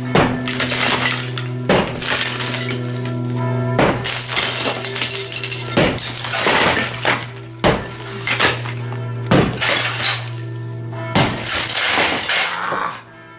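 Sledgehammer blows smashing through a ceiling of hollow clay tiles set in cement: about eight heavy strikes, roughly one every two seconds, each followed by crumbling, falling rubble. Steady background music plays under the blows.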